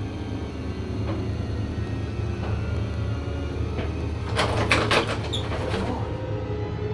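A panelled door rattling and knocking in a quick, loud run of clatters lasting about a second and a half, starting about four and a half seconds in, over a low steady drone with a few faint clicks before it.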